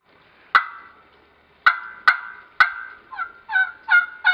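Quaker Boy Trifecta turkey call worked to imitate a hen turkey: four sharp single clucks, then a regular run of yelps, about three a second, each note breaking from high to low, beginning about three seconds in.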